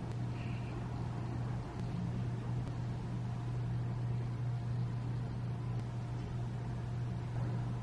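A steady low droning hum with an even hiss over it, unchanging throughout.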